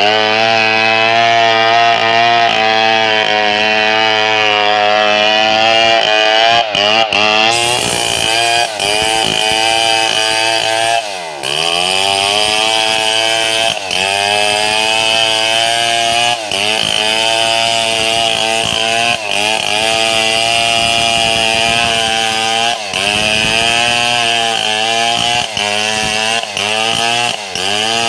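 Two-stroke chainsaw at full throttle, ripping lengthwise through a mahogany log. The engine pitch holds high under load, drops sharply and climbs back about 11 seconds in and again near 23 seconds, with smaller dips between.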